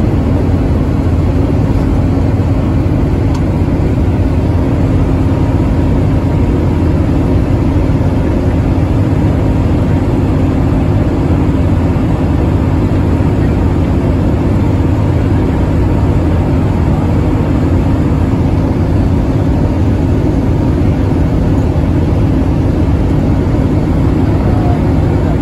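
Intercity bus cruising at steady motorway speed: a constant low engine drone mixed with road and tyre noise, heard from inside the bus.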